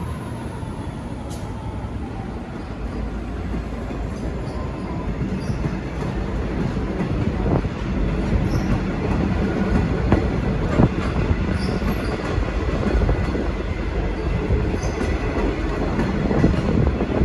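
A V/Line locomotive-hauled passenger train's carriages rolling past as it pulls out, wheels clacking over rail joints and points, with a few sharp knocks and a faint high wheel squeal. The rumble slowly grows louder as the train picks up speed.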